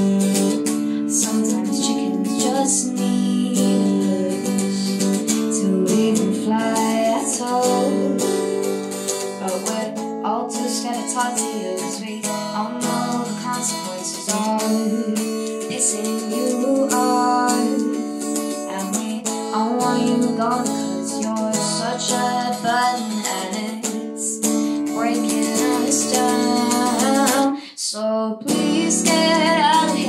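A woman singing over an electric guitar strummed through an amplifier, with one brief break in the sound near the end.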